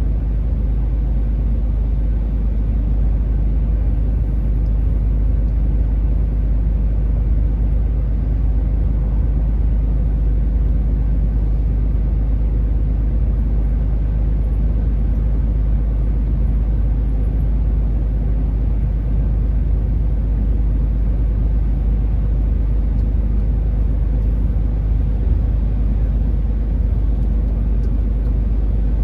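Heavily loaded truck's diesel engine and road noise heard from inside the cab: a steady low drone while climbing with about 27 tonnes of bricks.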